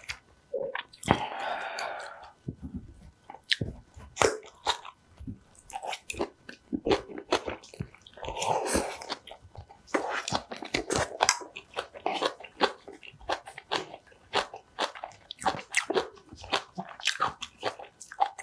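Close-miked eating: chewing and crunching a mouthful of spicy green onion kimchi, with many short wet mouth clicks and two longer noisy stretches, one about a second in and one about halfway.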